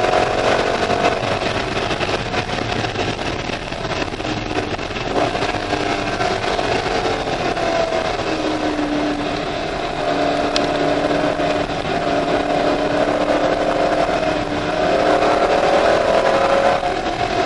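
Chevrolet C5 Corvette Z06's LS6 V8, heard from inside the cabin while being driven on a race track. The engine note falls in the first few seconds, holds lower and steady through the middle, then climbs again near the end as the car accelerates.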